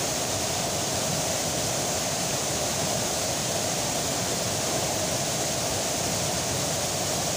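Waterfall: water falling and splashing in a steady, dense rush that does not change.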